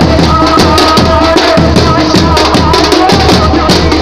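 Ratib devotional music: voices chanting over frame drums beaten in a fast, steady rhythm, with a jingling rattle on the beats.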